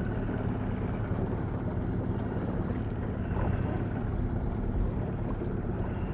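Boat motor running steadily: a low, even hum that does not change.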